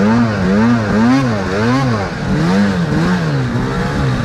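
Snowmobile engine revving up and down in a quick repeated rhythm, about twice a second, as the throttle is worked riding through deep snow.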